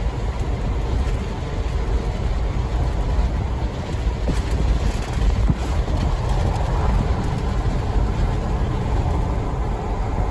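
A car driving steadily along a road, its tyre and engine rumble heard from inside the cabin.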